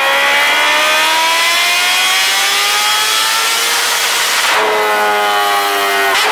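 Supercharged Kawasaki Ninja H2R inline-four engine revving hard on a chassis dyno, its note climbing steadily in pitch for about four and a half seconds. It then breaks off with a sharp crack to a lower note, and a second crack comes near the end.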